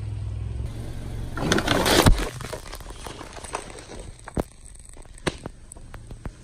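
Car tyre crushing plastic soda bottles full of cola: a loud crackling burst about a second and a half in, ending in a sharp pop near two seconds as the bottles split. Then the spilled cola fizzes, with scattered sharp clicks. A low engine rumble runs under the start.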